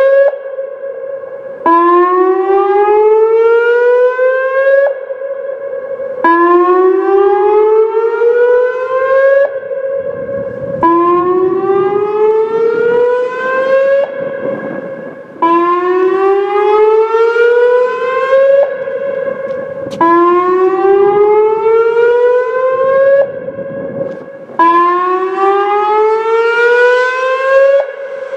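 Whelen WPS-2805 electronic outdoor warning siren sounding its whoop signal in a test: a loud, repeating rising tone, each whoop sweeping up in pitch over about three seconds with a brief, quieter steady tone between whoops, about six times.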